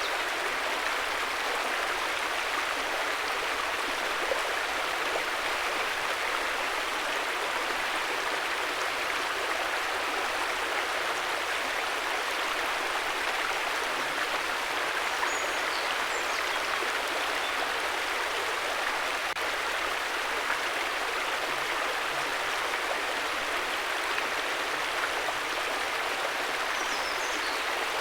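River water flowing steadily: an even, unbroken rushing with no change in level.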